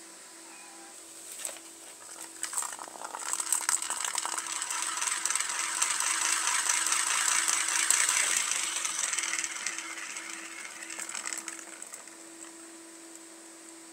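A plastic ball rolling fast around the circular track of a plastic cat track toy, a continuous rattle that builds up, peaks and slowly dies away as the ball loses speed.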